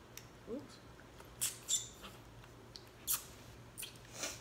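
Close-up eating sounds: a string of short, sharp clicks and crackles from boiled seafood shell being picked apart by hand, with wet mouth smacks while chewing. One of them, about two seconds in, is briefly squeaky.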